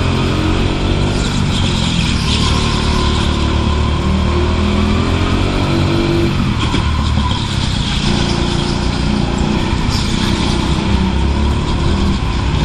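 Go-kart engine heard from on board, its revs rising and falling as the kart is driven through corners. The revs drop off about six seconds in and build again about two seconds later.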